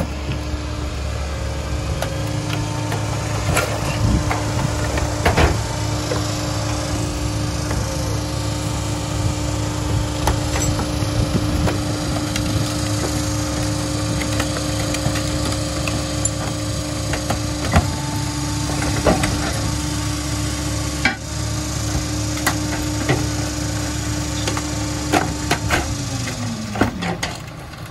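Diesel engine of a New Way rear-loader garbage truck running steadily at raised revs, with scattered knocks and bangs of trash carts against the hopper. Near the end the revs fall away to idle.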